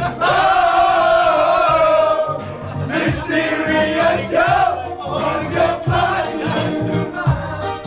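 Several men singing together over a pop backing track with a steady beat, holding one long note for the first two seconds or so.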